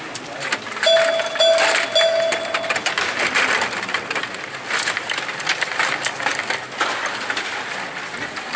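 Stiga table hockey game in play: a busy clatter of clicks and knocks from the players' rods being pushed and spun and the puck striking the plastic figures and boards. About a second in, a beeping tone sounds three times in quick succession.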